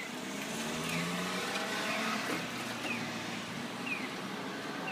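Steady street traffic noise of passing cars, with a short, high chirp falling in pitch that repeats about once a second.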